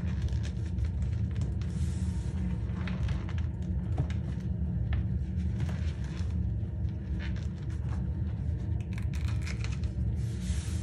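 Hands squeezing and crumbling chunks of cornstarch powder: squeaky crunching and crackling, with a soft hiss of powder spilling about two seconds in and again near the end. A steady low hum runs underneath.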